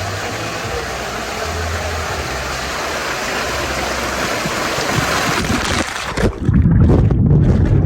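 Rushing, splashing water noise on the microphone, which becomes a loud low muffled rumble, with the hiss cut off, about six seconds in, as the microphone goes under the water.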